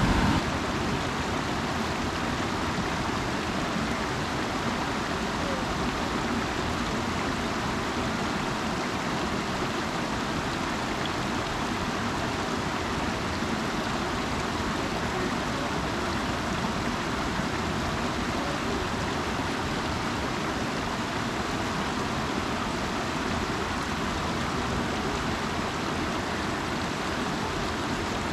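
River water rushing over rocks: a steady, even rush.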